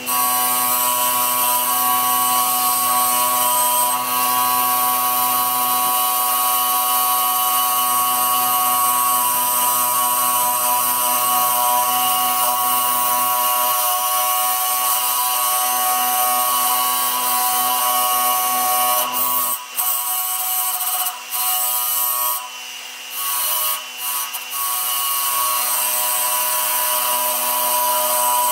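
Electric motor spinning a polishing wheel, with a steady whine, as a metal microphone tube is pressed against it and scrubbed clean, adding a rough hiss. In the second half the sound drops briefly a few times.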